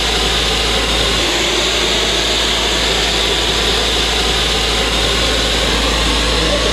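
Fire hose flowing through a Vindicator nozzle at about 260 gallons a minute, with the fire engine's pump running at 130 psi discharge: a steady, unbroken rush of water and engine noise.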